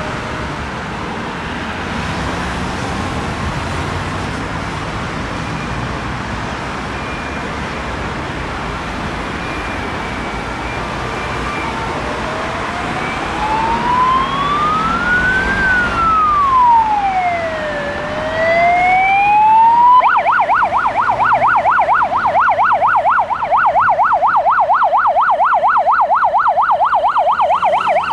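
Road traffic, then an emergency vehicle's electronic siren about twelve seconds in: a slow wail that rises, falls and rises once, then switches to a fast yelp of about five cycles a second, getting louder as the vehicle comes on.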